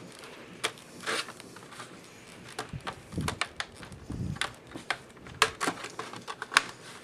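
Scattered light clicks and taps of a laptop's plastic bottom access panel and a small screwdriver being handled while the panel is refitted over the RAM slot, with a couple of duller knocks near the middle.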